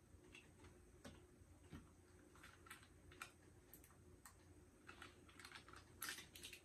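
Faint crinkling and clicking of small plastic dipping-sauce cups being handled and their lids peeled open, in scattered short ticks with a louder rustle near the end.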